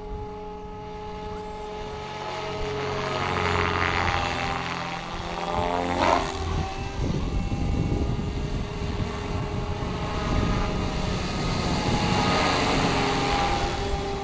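Electric SAB Goblin 500 radio-controlled helicopter flying, its rotor and motor whine swelling and rising in pitch. About six seconds in it drops sharply in pitch at its loudest, then builds again near the end.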